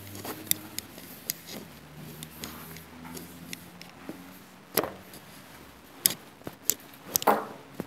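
Scattered light clicks, then a few sharp knocks: a whiteboard eraser set down on the board's tray, then the knocks and steps of someone moving away from the board.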